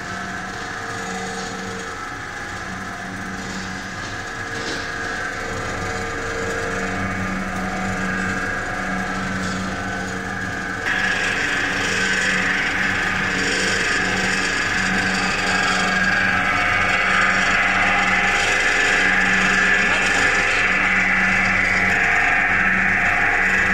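Single-screw snack pellet extruder running: a steady mechanical whirr over a low hum that comes and goes. About eleven seconds in it turns abruptly louder and brighter.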